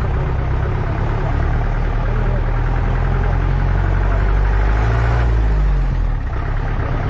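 Off-road vehicle's engine running steadily as it drives a rough forest track; the engine note climbs, then drops back about five and a half seconds in.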